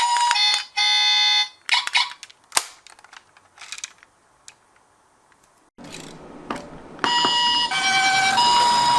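Toy minicar ambulance's electronic siren sounds. A pulsing electronic alarm tone plays for the first second and a half, followed by scattered light clicks and a brief quiet. From about seven seconds in comes the Japanese ambulance two-tone siren, alternating a high and a low note (pee-po).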